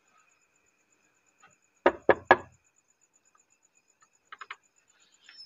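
Knocking on a wooden door: three loud raps about two seconds in, then three lighter, quicker raps near the end.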